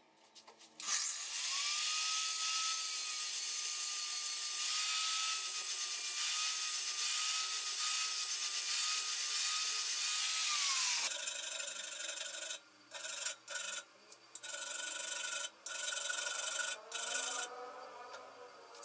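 A small high-speed rotary power tool spins up about a second in and grinds steadily on a rusty steel hammer head, its whine winding down about eleven seconds in. It then runs in several short bursts with quiet gaps between them.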